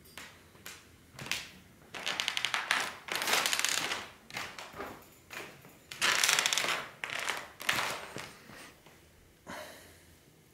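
Rustling and crinkling handling noise in a run of irregular bursts, the longest around two to four seconds in and about six seconds in, some with a fine rapid crackle.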